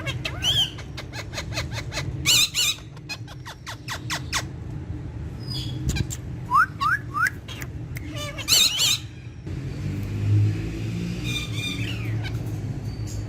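Parrots squawking and calling: a quick run of short clicks, several loud harsh screeches, and three quick rising chirps. A steady low rumble runs underneath and grows louder about two-thirds of the way through.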